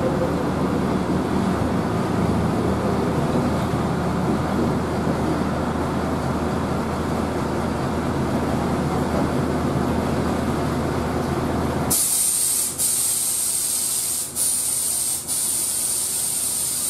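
Diesel bus engine idling close by, a steady low rumble. About twelve seconds in this gives way abruptly to a steady high hiss.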